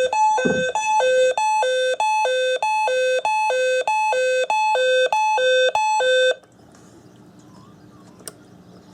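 Weather radio receiver's alert alarm: a two-tone hi-lo warble switching back and forth about twice a second. It stops suddenly about six seconds in, leaving faint hiss.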